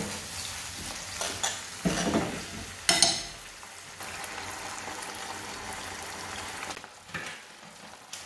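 Pasta sauce sizzling in a frying pan on a gas hob as the pan is tossed with the tagliatelle and freshly added spinach. There are two louder bursts about two and three seconds in, then a steady sizzle that softens near the end.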